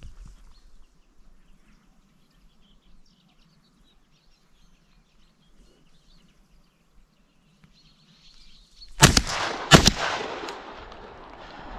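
Two shotgun shots about two-thirds of a second apart, nine seconds in, each followed by a rolling echo. Before them, quiet with faint birds chirping.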